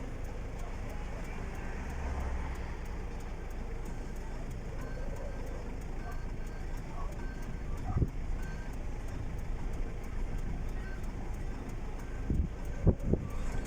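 Motor vehicles running with a steady low rumble. There is a sharp knock about eight seconds in and a few more knocks near the end.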